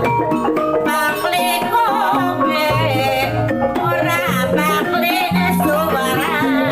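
Javanese folk accompaniment music for a kuda lumping / warok performance: a wavering, vibrato-laden melody line over fast drum strokes and sustained low notes that shift every second or two.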